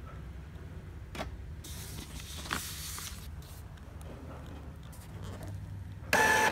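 Epson L-series ink tank printer running a head-cleaning cycle: a steady low hum with a few light clicks and rustles. Near the end comes a short, loud motor whine of about half a second.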